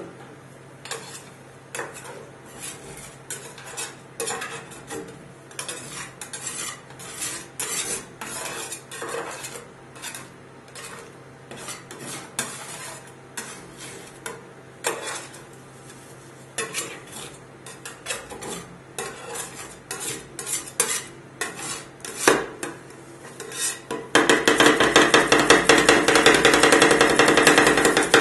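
Steel spatulas scraping and tapping on the frozen steel pan of a rolled-ice-cream machine as they spread a milky ice cream base, in irregular strokes. About 24 seconds in it turns into fast, loud, continuous chopping with a spatula edge striking the pan.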